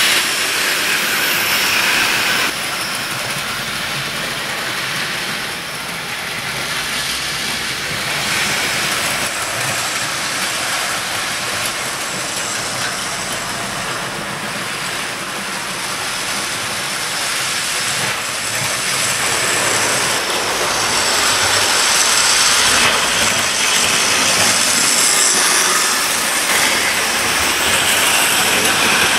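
OO gauge model trains running on the track: a steady whirr of their small electric motors and wheels on the rails, growing louder about two-thirds of the way through.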